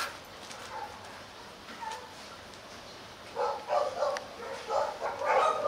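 Hmong bobtail dog whining and yipping in courtship, a run of short high-pitched whines starting about three and a half seconds in and repeating to the end.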